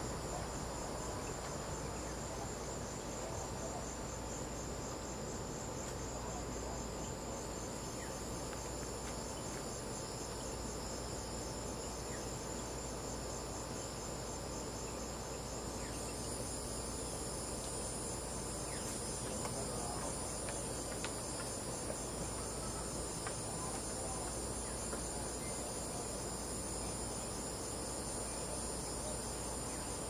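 Crickets chirping in a steady chorus of overlapping high, pulsing trills; a still higher-pitched trill joins about halfway through.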